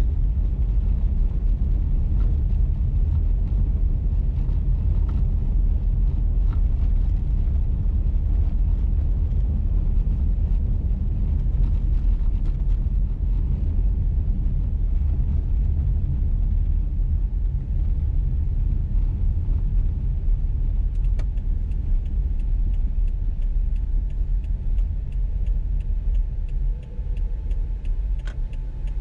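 Steady low rumble of a car's road and engine noise heard inside the cabin while driving. About three quarters of the way in, the turn-signal indicator starts ticking at an even rate.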